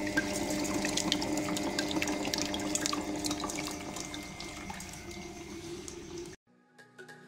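Commercial stand mixer (Model-B5) running with its wire whisk beating eggs and sugar in a steel bowl: a steady motor hum under a wet churning and many light ticks. The sound cuts off abruptly about six seconds in.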